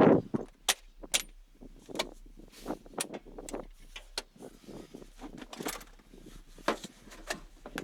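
Irregular clicks, knocks and light rattles of hands working an air filter housing: clips being undone and the plastic cover and filter being lifted out. The loudest knock comes right at the start.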